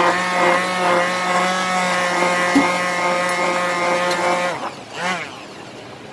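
Electric stick blender whirring in a stainless steel mug of milky coffee, whipping it into froth: a steady motor whine that stops about four and a half seconds in, then whirs again briefly about half a second later.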